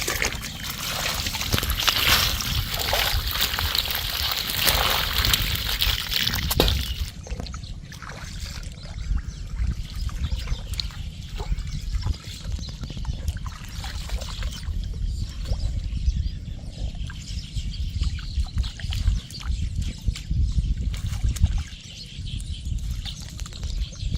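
Water trickling and splashing over a steady low rumble on the microphone. A dense hiss fills the first seven seconds or so and stops abruptly.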